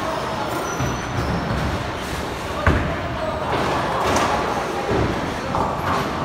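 Bowling alley din: balls rolling down the lanes and pins clattering, with a sharp knock about two and a half seconds in.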